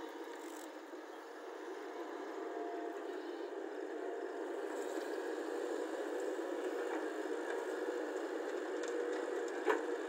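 Caterpillar hydraulic excavator's diesel engine and hydraulics running under load as it lifts and swings a full bucket of soil, growing louder after the first second or so. A single sharp knock near the end.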